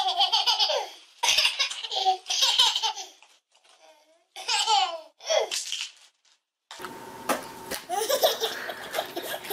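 Toddler laughing hysterically in several fits of giggles separated by short pauses. In the last few seconds a baby laughs over a faint steady hum.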